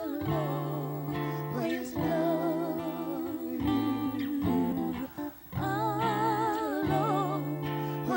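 Music: acoustic guitar accompaniment under a wordless melody with a wavering vibrato, which sounds like humming. It comes in phrases with short breaks.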